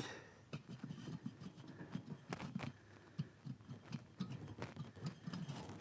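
Faint, irregular clicks and taps of metal engine parts and hand tools being handled while a part is taken off the engine's top end.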